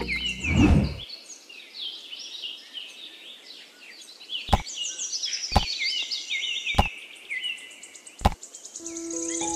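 Small songbirds chirping and twittering in quick repeated phrases, with four sharp clicks spaced about a second apart in the second half.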